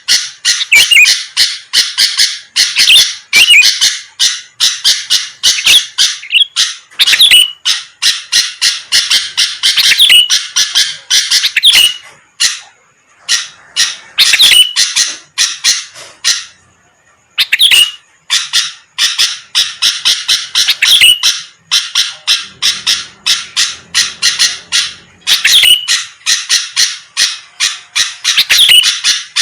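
Sooty-headed bulbul (kutilang) in full, energetic song: fast, continuous chattering calls with two short breaks about halfway through.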